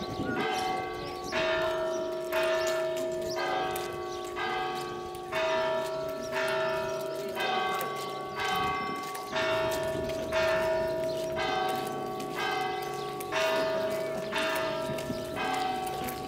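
Church bells ringing, struck about once a second, alternating between two or more pitches, each stroke ringing on under the next.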